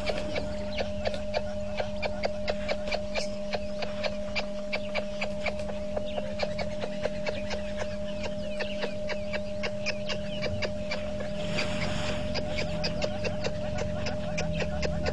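Rapid, even clicking animal calls, about five a second, over a steady hum and a constant tone; a brief hiss about twelve seconds in.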